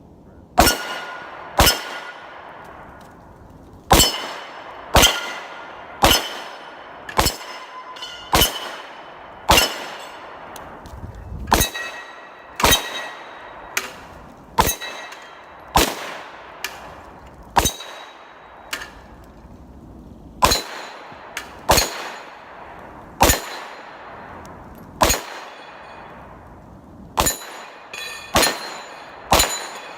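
A string of 9mm pistol shots from a Glock 34 firing +P+ rounds, roughly one a second with a few short pauses, each mixed with the clang of a hit steel plate that keeps ringing briefly afterwards.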